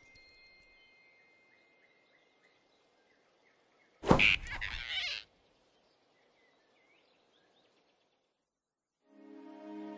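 Cartoon whoosh sound effect: a sudden rushing swish about four seconds in that lasts about a second. Near silence follows until soft music begins near the end.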